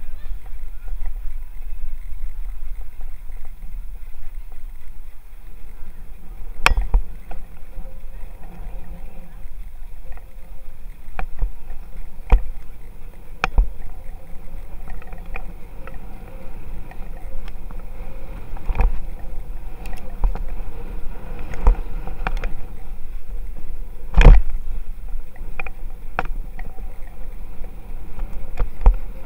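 Wind rushing over the microphone and a low road rumble from a camera riding on a moving bicycle, with about ten sharp knocks scattered through, the loudest about three-quarters of the way in.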